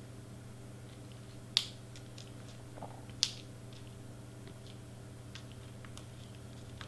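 Small craft embellishments handled and pressed onto a cardstock face: two sharp clicks about a second and a half apart, with a few faint ticks, over a steady low hum.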